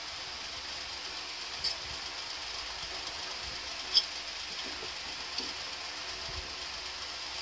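A fork clicks against a ceramic plate three times while spearing a piece of French toast, the sharpest click about four seconds in, over a steady background hiss.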